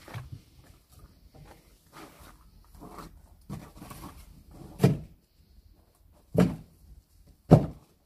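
Handling noises from a man working around a wooden pallet stacked with hay bales: scattered scraping and light knocks, then three heavy dull thumps in the second half.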